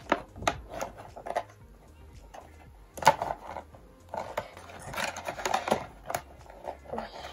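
Cardboard toy-car box with a clear plastic window being handled and opened by hand: scattered light clicks and taps on the packaging at first, then louder rustling and scraping of the cardboard and plastic from about three seconds in.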